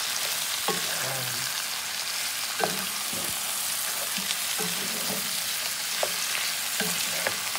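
Raw chicken wings sizzling in hot oil with browned onion and garlic in a pan, stirred with a wooden spatula. The spatula knocks and scrapes against the pan about once a second over the steady sizzle.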